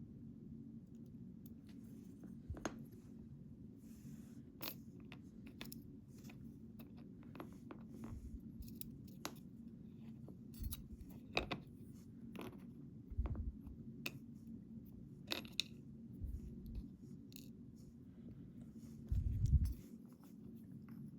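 Scattered small metallic clicks, taps and scrapes from a custom challenge lock being taken apart by hand, with a few dull bumps of handling, the loudest about a second before the end.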